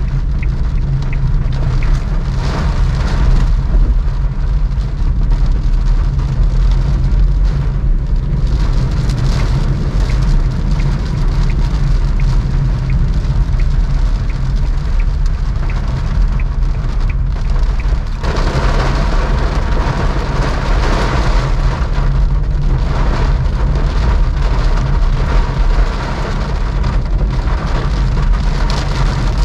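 Rain pattering on a moving Suzuki Alto, heard from inside the cabin over the steady low hum of its engine and tyres on a wet road. The rain and splash hiss grows louder about two-thirds of the way through.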